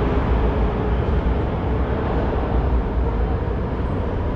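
Steady low rumble and hiss of a metro station with a train standing at the platform, with no sharp events.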